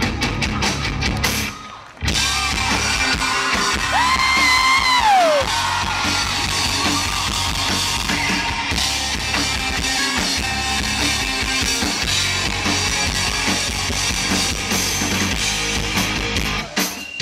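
Live rock band playing: drum kit, electric guitars and a singer through the stage sound system. The sound briefly drops out about two seconds in, and around four seconds a long high note is held and then slides down.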